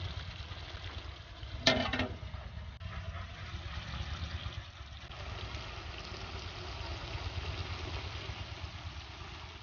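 Crab and boiled eggs cooking in a thick masala sauce in a steaming wok: a steady simmering hiss over a low, even rumble. About two seconds in there is one brief loud pitched sound.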